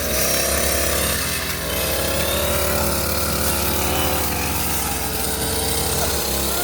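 Brush cutter engine running at high revs while clearing undergrowth, its pitch dipping about a second in and then wavering as the throttle is eased and opened.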